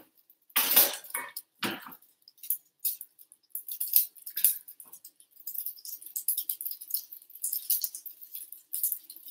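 A utensil scraping and knocking in a stainless frying pan a few times in the first two seconds, then a cloth rubbing along a utensil's handle in quick light rustles.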